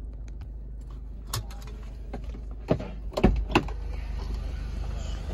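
Steady low hum of the Range Rover Evoque's 2.0-litre turbocharged four-cylinder idling, heard from inside the cabin, with a handful of sharp clicks and knocks about one to four seconds in.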